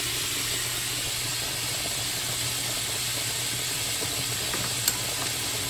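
Steady hiss of stovetop cooking: a pot of penne at a rolling boil, with a batch of chicken frying in oil alongside. One sharp click near the end.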